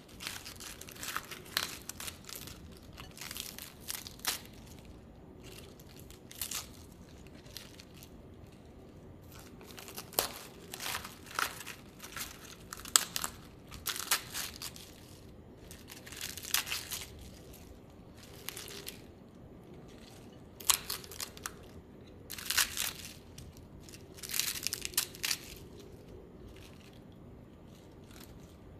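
Crisp iceberg lettuce leaves being torn apart by hand: repeated crunching, crackling tears in irregular bursts, some sharper and louder than others.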